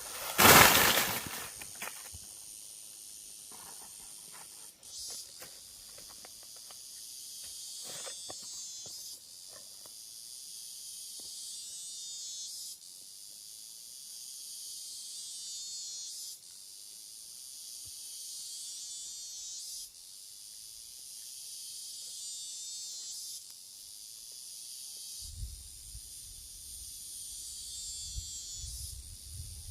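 High-pitched insects droning steadily, the sound swelling and fading every few seconds. A loud, brief noise comes under a second in, and a low rumble near the end.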